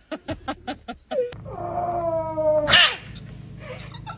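Samoyed dog vocalising: a quick run of short yips, about seven a second, then one long whining howl that slides slowly down in pitch and ends in a loud harsh burst.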